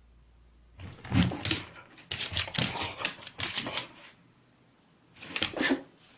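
A dog chewing and crunching on something in quick crackling bursts, with a pause of about a second before a last short burst.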